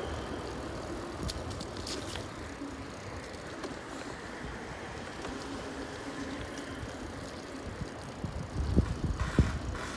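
Bicycle rolling along a wet tarmac road: steady tyre and road noise with low wind rumble on the handlebar-mounted microphone, and a few louder rumbling knocks near the end.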